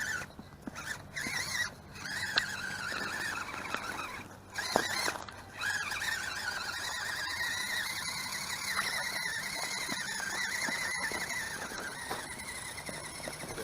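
Element RC Enduro 24 Sendero 1/24-scale crawler's electric motor and gears whining as it drives, the pitch rising and falling with throttle and load. There are a few short knocks and clicks in the first several seconds, with gaps where it stops.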